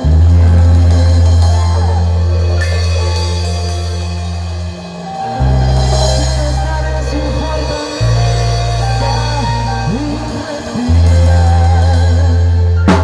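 Music with a deep held bass line that changes note every few seconds and a melody above it.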